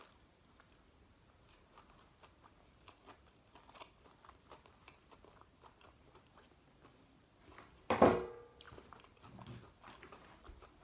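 A person eating close to the microphone: soft chewing with small wet clicks, and one sharp, loud crunch or clatter about eight seconds in.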